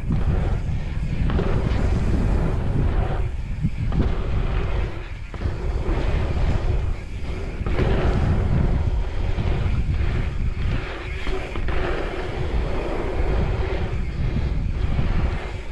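Wind buffeting the microphone of a camera carried fast along an asphalt pumptrack, over a rolling rumble of wheels on the tarmac. The noise swells and eases every second or two as the rider goes over the rollers and through the berms.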